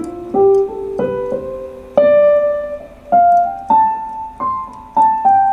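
Korg Pa3X arranger keyboard playing a piano voice: single notes struck one at a time in a slow run, rising up the keyboard and falling back near the end. Some notes come out much louder than the others, the sign of a key whose velocity sensing has failed, so it sounds loud even when pressed softly.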